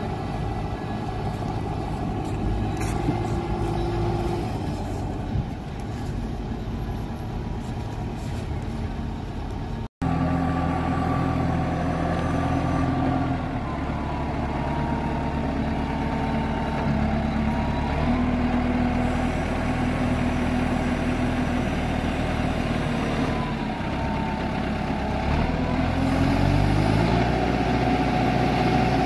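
JCB Loadall telehandler's diesel engine running, its speed stepping up and down several times as the boom is worked, and rising near the end. The sound drops out for an instant about a third of the way in, after which the engine is louder.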